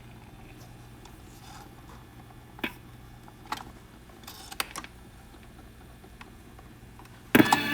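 Scattered clicks and knocks from handling the controls and mechanism of a vintage Admiral radio-phonograph, over a steady low hum from the set. Near the end comes a short, loud, noisy scrape and rumble.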